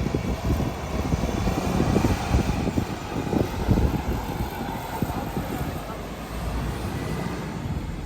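Outdoor city noise: a steady hum of passing traffic, with low buffeting on the microphone.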